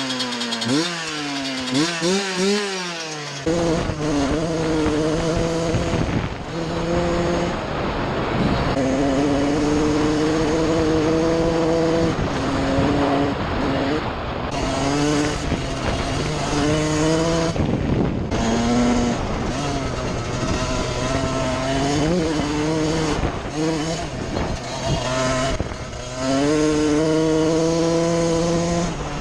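1999 Suzuki RM125's single-cylinder two-stroke engine revved in short blips, then, a few seconds in, run hard under a rushing noise, its pitch climbing and falling back again and again.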